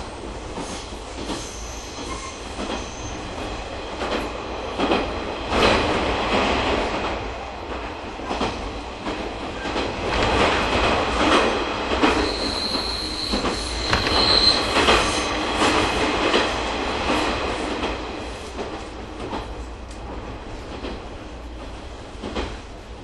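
Train running on jointed track, heard from inside the carriage: a steady rumble with rail-joint clicks. About halfway through, the wheels squeal with a high steady tone for a few seconds.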